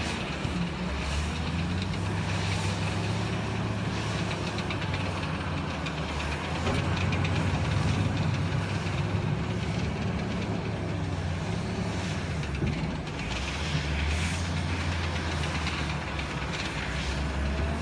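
Bell L1806 wheel loader's diesel engine running under load as the machine drives and works its bucket, growing a little louder about halfway through.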